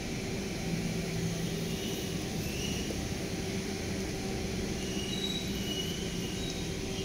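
A steady low mechanical hum with a held whining tone running under it, and a few faint short high chirps in the second half.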